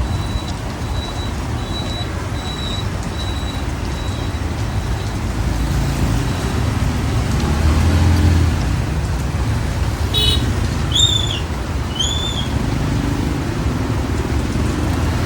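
Street traffic rumbling steadily, with two short high-pitched beeps about two-thirds of the way through.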